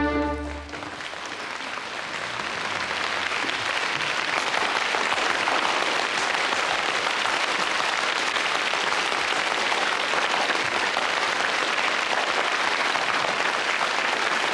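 Opera audience applauding: the orchestra's final held chord cuts off just under a second in, and the clapping swells over the next few seconds, then holds steady.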